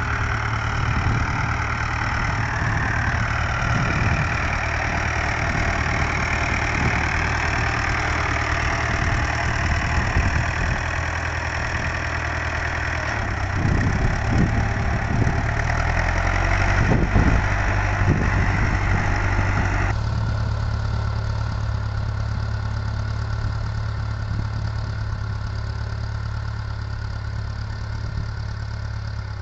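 Vintage farm tractor engine running steadily; the sound changes abruptly about twenty seconds in.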